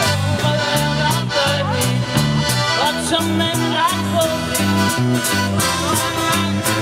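A live band playing a song: a stepping bass line, drums with evenly spaced cymbal strokes, guitars and accordion, with a sliding melody over the top.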